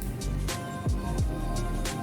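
Background music with a steady beat: deep kick drums, crisp snare and hi-hat hits over sustained instrument tones.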